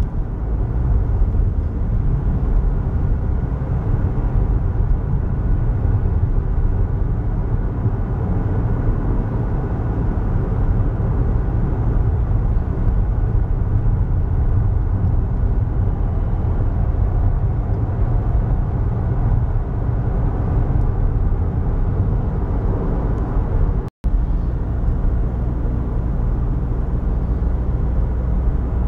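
Steady low road and engine noise heard inside the cabin of a car driving at speed. There is a split-second gap in the sound near the end.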